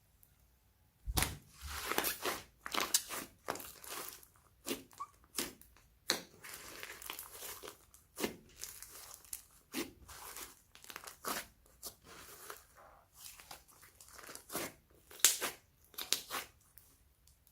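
Slime being squeezed, stretched and poked by hand, making irregular wet crackles, clicks and pops, starting about a second in.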